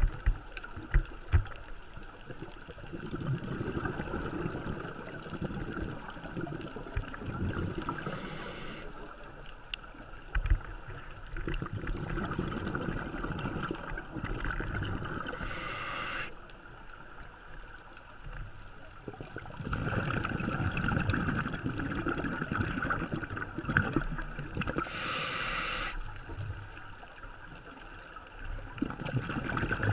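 Scuba diver breathing through a regulator underwater: long gurgling spells of exhaled bubbles alternating with short hissing inhalations, a slow cycle of about eight seconds, three times.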